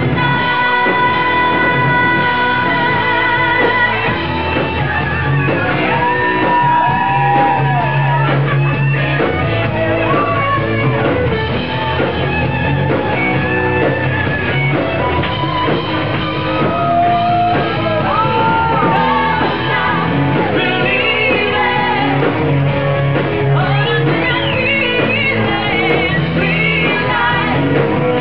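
Live rock band playing: electric guitar with bending notes over bass guitar and drums, with singing.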